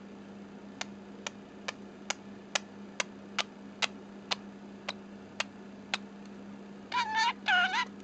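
Budgerigar making a run of sharp clicks, about two a second, then two short warbling chirps near the end.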